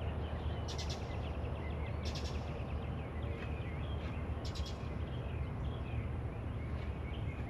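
Birds chirping and calling over a steady low background rumble, with three short rattling bursts about one, two and four and a half seconds in.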